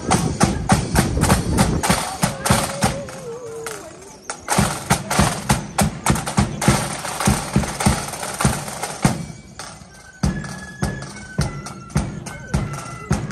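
A marching band's drums beating a steady march rhythm, easing off briefly around four seconds and again just before ten. After that a tune of high held notes, stepping from one pitch to the next, comes in over the drumming.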